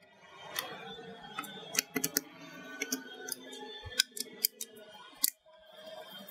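Screwdriver turning the spring-loaded screws of a server CPU heatsink, giving a string of irregular sharp clicks and small metal scrapes.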